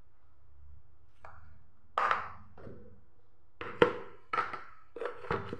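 A spoon knocking against a stainless steel mixer jar about six times, short sharp taps with a brief metallic ring, as the cornflour is tipped and knocked off into the jar.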